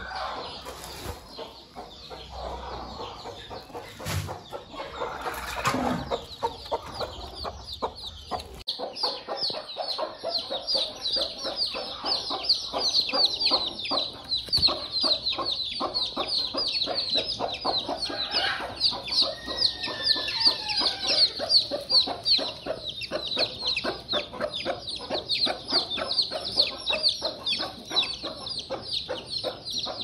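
Native country-chicken chicks peeping, a dense run of short high chirps, many a second, with a mother hen clucking underneath. The peeping begins about a third of the way in, after low rumbling and a few knocks.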